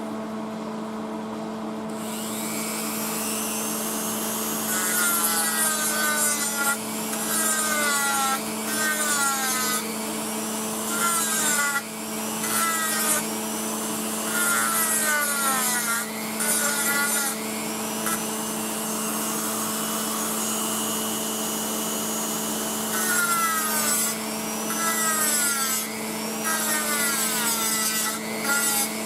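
Welder laying short stitch welds on the sheet-steel floor panel of a Triumph TR3, the arc crackling in bursts of about a second with brief pauses between, over a steady hum.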